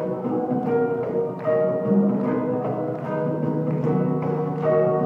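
Acoustic guitar playing chords, strummed in a steady rhythm.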